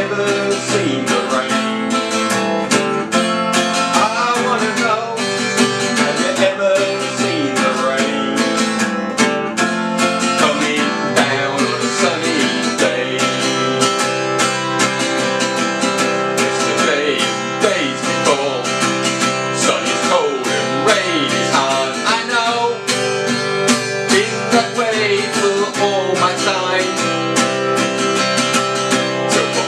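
Acoustic guitar strummed in a steady rhythm, with a man's voice singing along in stretches.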